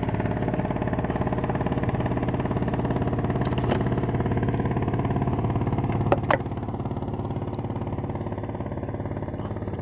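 A small engine running steadily, dropping slightly in level about six seconds in, with a few light knocks partway through.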